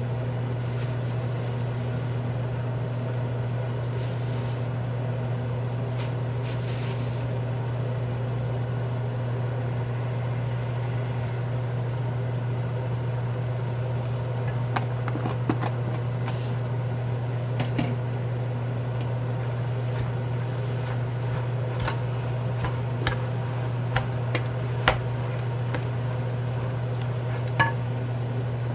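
A steady low hum of a kitchen machine runs throughout. From about halfway through come scattered light clicks and knocks of utensils against dishes and pots.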